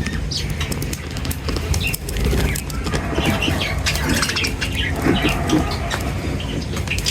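A flock of budgies and lovebirds chirping and chattering in quick, overlapping calls, mixed with many sharp clicks, over a steady low rumble.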